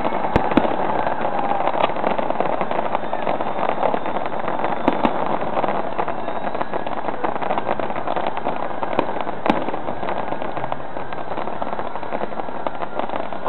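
Fireworks display going off in dense succession: a continuous crackling, popping din, with a few sharper bangs standing out, two in the first second and more around the middle.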